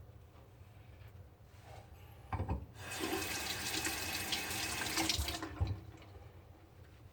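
Sink tap turned on and run for about two and a half seconds, water splashing into the basin, with a few knocks just before it starts and around when it stops.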